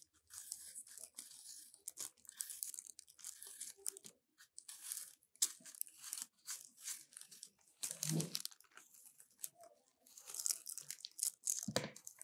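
Apples being peeled with a knife: quick, irregular scraping strokes of the blade cutting through the peel.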